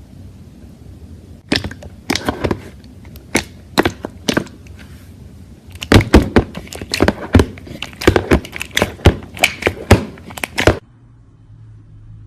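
Slime being worked by hand, giving a run of sharp crackling pops, sparse at first and then denser, stopping suddenly near the end.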